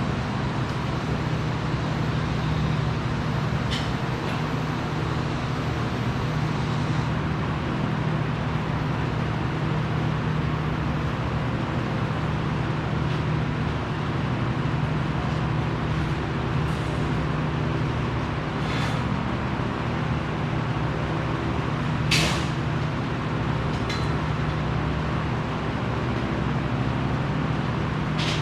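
Steady low machine hum with a few sharp metallic knocks scattered through it, the loudest about two-thirds of the way in.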